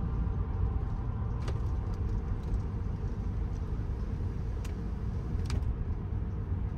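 Steady low rumble of a car driving, with a few faint clicks.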